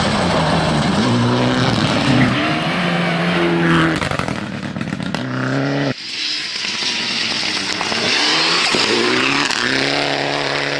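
Mitsubishi Lancer Evolution rally car engines at full throttle on gravel. The revs rise and drop with gear changes, with gravel and stones spraying from the tyres. The sound cuts abruptly about six seconds in to a second car building revs as it slides through a bend.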